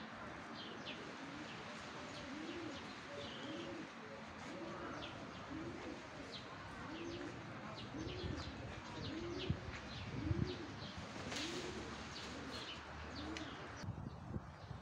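A pigeon cooing in a long, evenly spaced series of low coos, a little more than one a second, while small birds chirp high and thin.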